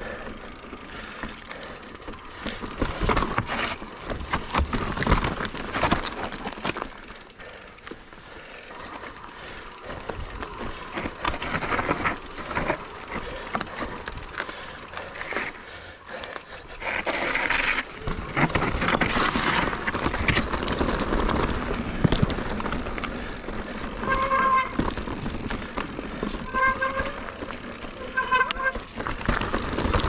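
2021 Giant Reign Advanced Pro 29 mountain bike riding down a rocky trail: tyres crunching over rock and dirt, with the bike knocking and rattling over bumps. In the last few seconds, four or five short squeals from the disc brakes.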